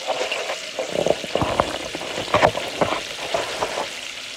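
Floured chicken wings and drumsticks deep-frying in hot oil: a steady sizzle with frequent sharp crackling pops, busiest in the middle and thinning near the end.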